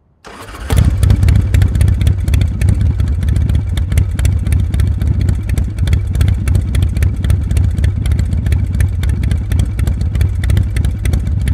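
Motorcycle engine running steadily, starting a fraction of a second in: a low rumble with rapid, even exhaust pulses.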